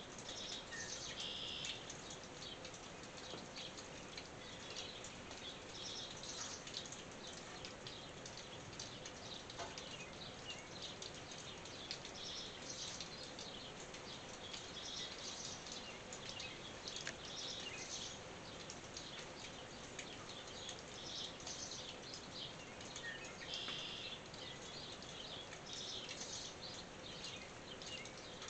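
Light rain pattering on a tin roof: a steady, fairly quiet patter of fine drips. Birds chirp briefly every few seconds.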